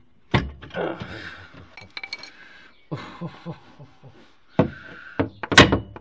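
Knocks and metallic clinks as a car's gearbox rear mount is worked up into place from underneath, levered on a piece of plywood: a string of sharp knocks, a couple of ringing metal clinks about two seconds in, and the loudest knocks near the end.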